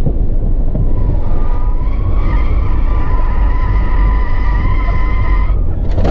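Car tyres squealing steadily through a corner for about four and a half seconds, stopping abruptly, over a constant heavy rumble of engine, road and wind noise.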